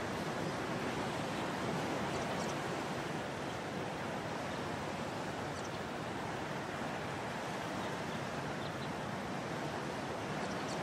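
Steady wash of choppy, wind-blown waves on open water, with wind.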